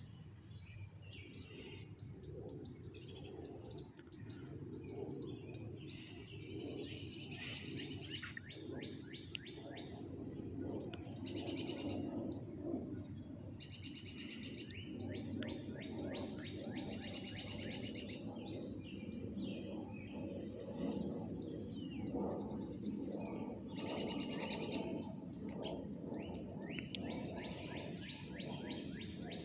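Several songbirds chirping and singing almost continuously, with quick repeated chirps and trills, over a steady low rumble.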